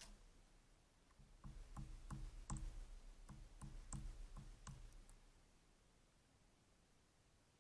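Woodpecker pecking at dead wood: a run of about a dozen irregularly spaced knocks over some four seconds, which then stop.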